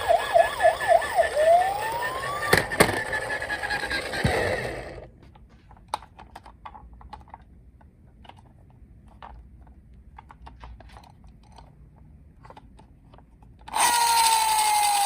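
Toy police car's electronic siren sounding in rapid rising sweeps, then slower sweeps, and cutting off about four and a half seconds in. Faint scattered clicks follow for several seconds, and near the end another toy siren starts with a falling wail.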